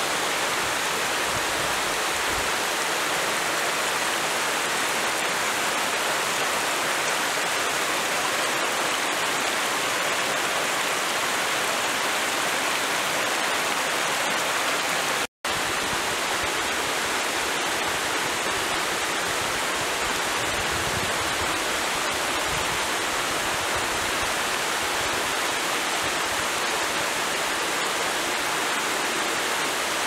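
Waterfall cascading over rocks into a stream: a steady rush of falling water, which cuts out for an instant about halfway through.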